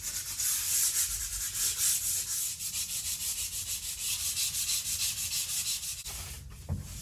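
Sanding pad rubbed by hand over filler-patched joins in plywood wall sheeting, in quick, even back-and-forth strokes. The rasping stops about six seconds in.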